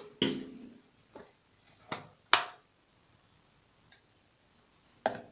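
About five short, sharp clicks and knocks spread over a few seconds, with quiet between: small toiletry items being handled and set down in a small tiled bathroom.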